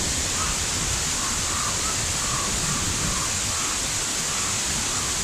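A wide, low waterfall pouring into a churning pool: a steady, even rush of falling water. A faint series of short, high calls repeats about twice a second through the middle.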